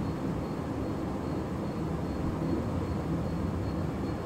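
A steady low rumble of background noise, even throughout, with no distinct events.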